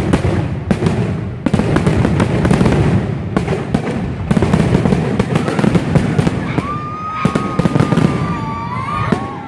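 Fireworks display: aerial shells bursting in quick, overlapping succession, booms mixed with crackle. A long high whistling tone comes in near the end.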